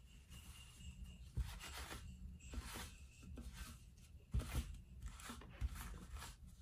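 Sticky lint roller rolled in several strokes over denim jeans, its adhesive sheet crackling as it pulls away from the fabric, with a few short knocks as it meets the table.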